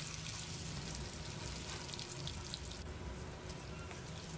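Paneer cubes deep-frying in hot oil, sizzling steadily with scattered small crackles.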